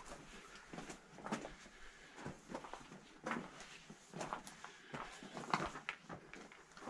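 Faint, irregular footsteps and small knocks, with some handling noise, from someone moving slowly through a small stone cellar.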